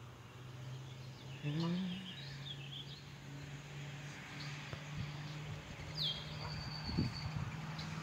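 Waterside ambience: scattered high bird chirps, and about six seconds in a short whistled call that drops in pitch and then holds, over a steady low hum.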